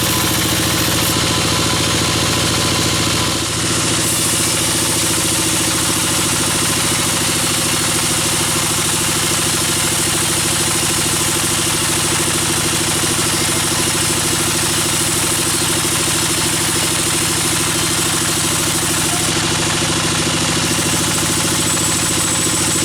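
Band sawmill machinery running steadily, an even engine-like drone with a brief dip about three and a half seconds in.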